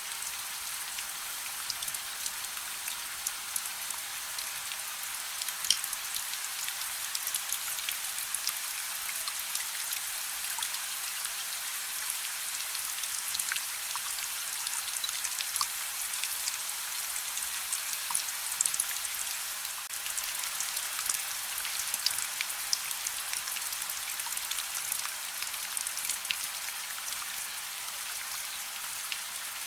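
Steady rain hissing, mixed with the soft crackle of a wood fire, with many short sharp pops and ticks scattered throughout.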